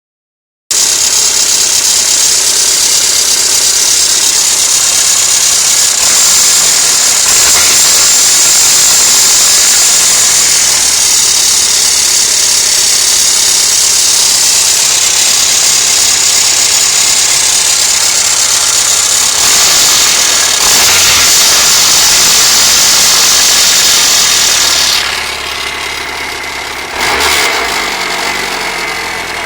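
Rover car engine running at idle with a knock, the cause of which the owner does not know. The sound drops noticeably in level near the end.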